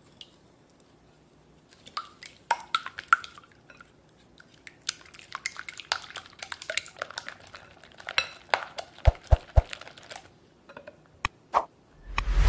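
Wire whisk beating egg whites with sugar in a glass bowl: after a quiet start, rapid irregular clinks of the wires against the glass for about eight seconds, then a few separate taps. Near the end, a short loud swoosh sound effect.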